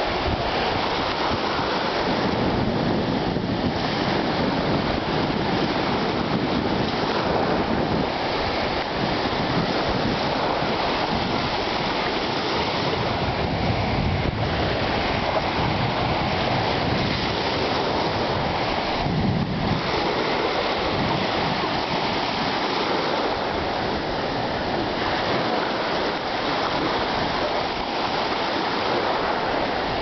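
Small sea waves breaking and washing in shallow water, a steady rush, with wind on the microphone.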